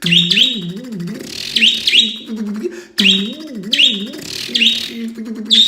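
A man imitating an engine cranking over and failing to start with his voice, a wavering hum that rises and falls, in two runs broken by a short pause about halfway. A pet bird chirps sharply over it again and again.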